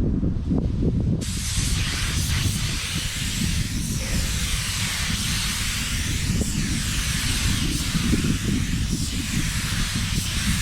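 Air-fed paint spray gun spraying, a steady hiss that starts about a second in and sweeps as the gun moves across the panel, with wind rumbling on the microphone.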